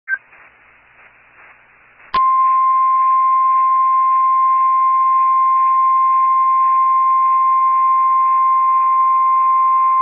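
NOAA Weather Radio warning alarm tone, a single steady 1050 Hz tone that starts suddenly about two seconds in after faint radio static. It is the alert signal that comes before a warning broadcast, here a severe thunderstorm warning.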